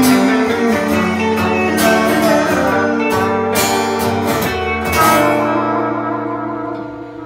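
Small live band of acoustic guitar, electric guitar and trumpet playing the close of a song, with sharp accents until about five seconds in. A final chord then rings out and fades away.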